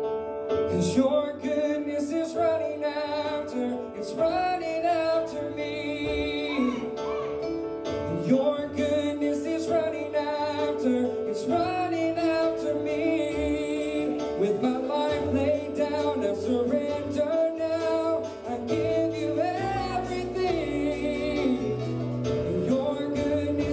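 Live worship band (electric guitar, keyboard and drums) playing, with voices singing over a steady held note.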